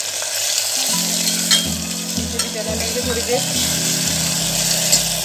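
Chopped tomatoes sizzling in hot oil in a pressure cooker, stirred with a metal ladle that scrapes and clicks against the pot.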